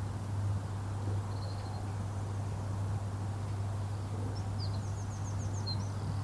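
Outdoor lakeside ambience: a steady low hum, with a small bird giving a quick run of short high chirps near the end.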